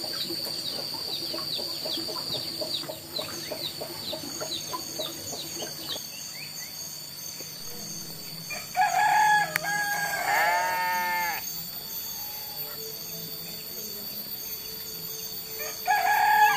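A rooster crowing loudly, once about eight and a half seconds in and again starting near the end, over lighter chirping and a steady high-pitched background tone.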